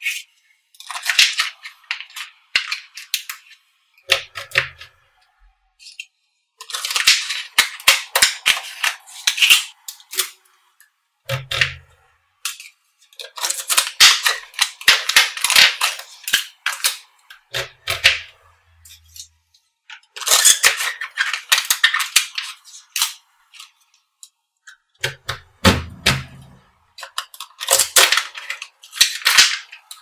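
Small magnetic balls clicking and clattering as they snap together and are pulled apart, in bursts of rapid clicks a few seconds long with short silences between. There are a few dull thumps.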